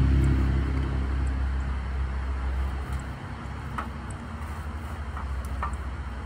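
Low, steady hum of a motor vehicle's engine, fading gradually as it recedes, with a few faint light clicks near the middle.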